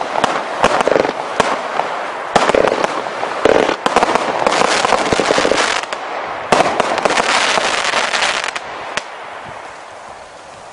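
Multi-shot consumer firework cake firing: a rapid string of launches and crackling bursts in several loud runs. The barrage ends about nine seconds in, leaving faint scattered crackles.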